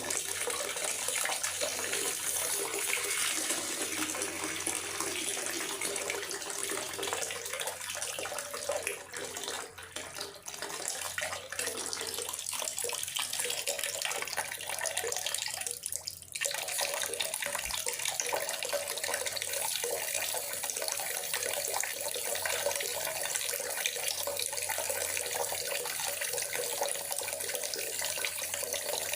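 Steady rain falling in a forest: a constant rushing hiss of water that dips briefly about ten seconds in and again around sixteen seconds.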